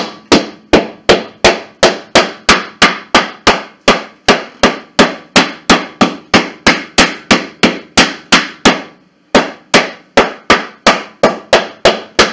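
Hammer striking a wooden board in a fast, even series of blows, about three or four a second, with one short break about nine seconds in: the wood is being dented to distress it so it looks old.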